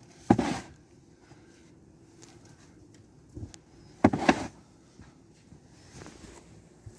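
Two short crunching scrapes in heavy wet snow, about four seconds apart.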